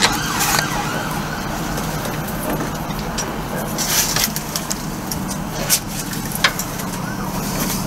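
Sharp metallic clicks and knocks from hand tools on bolts, scattered over a steady low mechanical hum.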